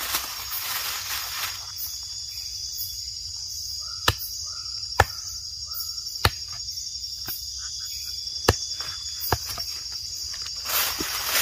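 Steady high-pitched chorus of night insects, with a handful of sharp, short knocks in the middle: a knife blade striking the heads of freshly caught fish against a log to kill them.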